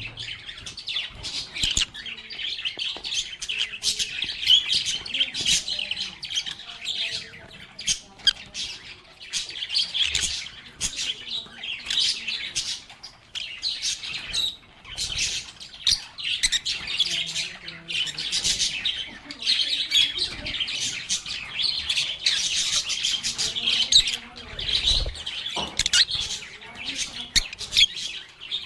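A flock of lovebirds chattering without pause: a dense tangle of shrill chirps and sharp squawks.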